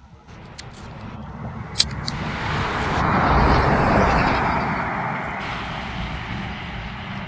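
A box truck passing on the road: tyre and engine noise swells to a peak about three to four seconds in, reaching about 73 dB(A) at the roadside, then slowly fades as it moves off. A brief sharp click comes a little before two seconds in.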